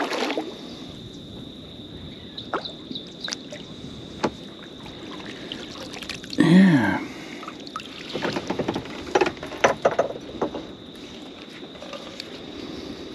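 Hooked black bream splashing at the water's surface beside a kayak, followed by water sloshing and dripping and scattered clicks and knocks of the tackle and landing net as the fish is played and netted. About halfway through comes a short grunt that falls in pitch.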